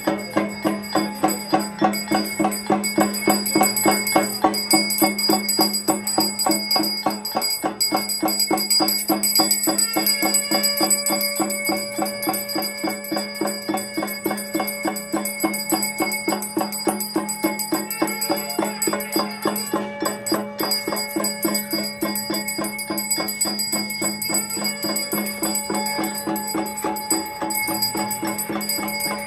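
Temple bells rung rapidly and steadily for the maha puja, about four strikes a second, their tones ringing on over one another.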